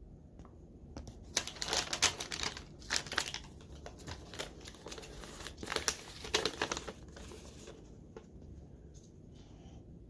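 Packaging being handled and crinkled, in two bursts of irregular rustling, then quieter.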